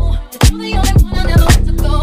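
Background music with a steady beat: deep kick drums that drop in pitch over a sustained bass line.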